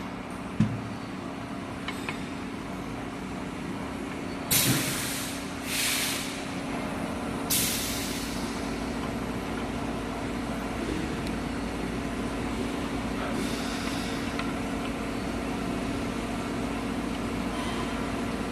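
Compressed air hissing out in three short blasts, typical of a pneumatic valve exhausting, over a steady machine hum, with a sharp click just after the start.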